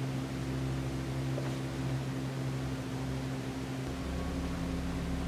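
A low, steady drone from the TV episode's soundtrack, its lowest notes changing about four seconds in.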